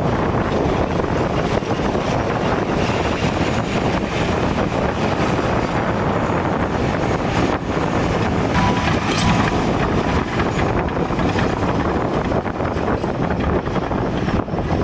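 Heavy diesel earthmoving machinery (bulldozers, scrapers and graders) running at a steady, loud level.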